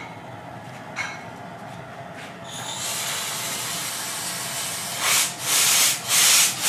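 Steam hissing out of the top valve of a steam car-wash boiler as the valve is opened. A hiss builds from about two and a half seconds in, then becomes loud blasts that break off briefly a few times.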